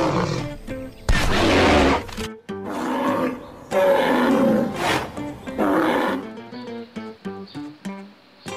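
Loud, rough animal roaring calls, five of them in the first six seconds, over acoustic guitar background music that carries on alone near the end.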